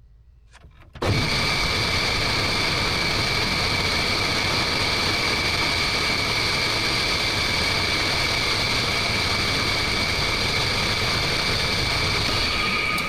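Metal lathe motor switched on and running steadily with a high whine, turning steel inserts; it is switched off near the end and winds down.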